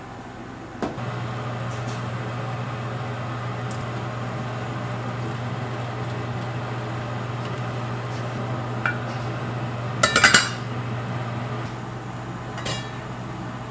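Cookware clinking and clattering during stovetop cooking: a few light knocks of utensils against pots, the loudest a quick clatter about ten seconds in, over a steady low hum.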